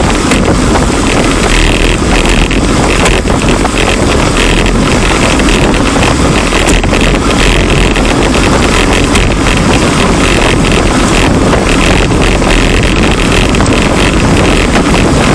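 Heavy wind buffeting on a camera microphone moving at about 24 mph, a steady loud rush with constant gusting, mixed with road and tyre noise.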